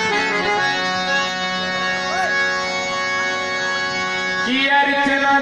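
Harmonium playing steady held chords. About four and a half seconds in, a man's voice comes in over it, singing a long wavering note.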